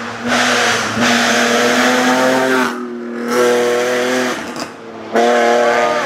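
Rally car engine running hard at high revs. The note breaks off briefly twice, about three seconds in and again between four and five seconds, then comes back loud at full throttle.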